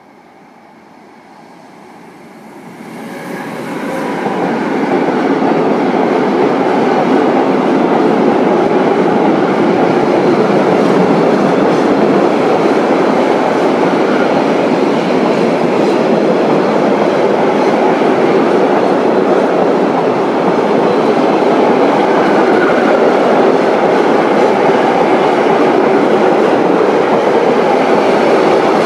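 Freight train of loaded double-deck car-transporter wagons hauled by an electric locomotive passing close by at speed. The sound swells quickly a few seconds in as the train arrives, then holds as a steady loud noise of wagon wheels running on the rails.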